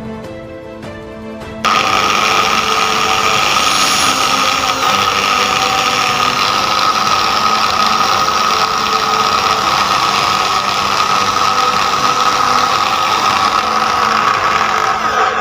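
Handheld electric drill running under load as its twist bit bores into a metal plate: a loud, steady whine that starts suddenly about a second and a half in and breaks off for a moment near the end. Background music with a beat is heard before the drill starts.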